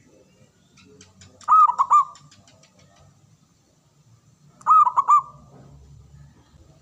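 Zebra dove (perkutut) cooing: two short bursts of three or four quick notes, about three seconds apart.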